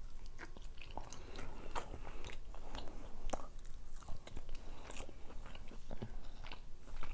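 A person biting and chewing rotisserie chicken skin close to a clip-on microphone: a steady run of small clicks of the mouth and food.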